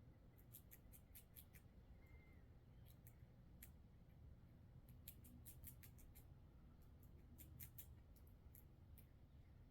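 Squirrel gnawing at the thick shell of a black walnut: faint runs of quick, dry scraping clicks from its teeth, coming in short bursts every second or two.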